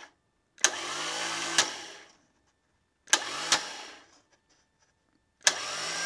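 Stock Bosch Porsche 911 starter motor run three times on a test stand, free-spinning with no engine, its Bendix gear thrown out against a block of wood. Each run opens with a sharp solenoid click, the motor whirs up in pitch, a second click comes about a second later, and the whir dies away.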